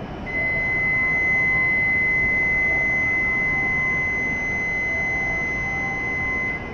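Station departure buzzer sounding one steady high tone for about six seconds, the signal that the doors and platform gates are about to close, over the low hum of an E7 series Shinkansen standing at the platform.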